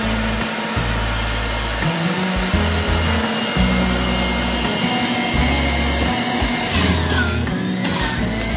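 Electric centrifugal juicer running as kale is fed down its chute, a steady high motor whine over a loud spinning rush. Near the end the whine drops in pitch and recovers, as the motor slows under the load of the greens.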